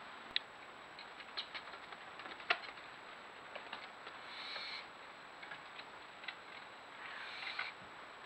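Barn owl at a wooden nest box: a run of light clicks and taps in the first four seconds, the loudest about two and a half seconds in, then two short hisses, about four and seven seconds in.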